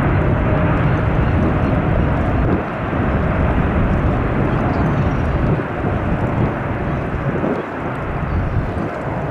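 Jet engine noise of a Boeing 777-300ER decelerating on its landing roll: a steady, even roar that drops in loudness in steps, about two and a half seconds in and again near the middle, as the aircraft slows.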